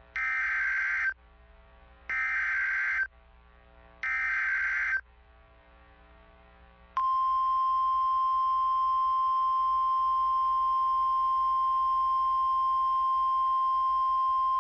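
Emergency Alert System SAME header: three warbling digital data bursts, each about a second long and a second apart. About two seconds later comes the steady single-pitch 1050 Hz NOAA Weather Radio warning alarm tone, which opens the broadcast of a new severe weather warning.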